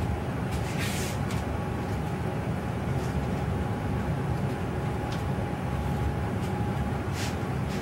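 Steady low hum of room background noise with a faint steady tone, broken by a few faint clicks and knocks.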